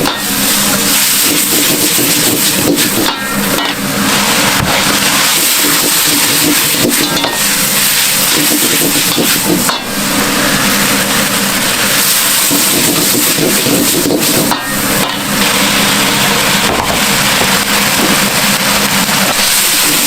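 Seafood yakisoba sizzling steadily on a hot iron griddle, with the knock and scrape of metal spatulas working the noodles.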